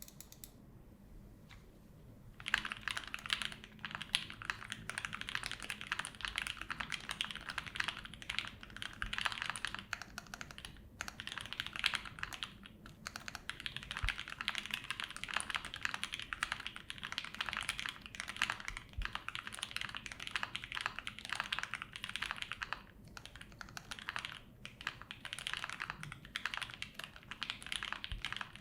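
Fast continuous typing on a gasket-mounted custom 65% aluminium mechanical keyboard with lubed and filmed C³ Tangerine V2 linear switches and GMK keycaps, a clean, slightly high-pitched clacking. The typing starts about two and a half seconds in, after near quiet, with a few brief pauses.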